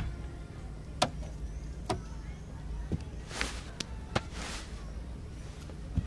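Rummaging sound effects: a few sharp clicks and knocks, and two soft swishes, over a low steady hum.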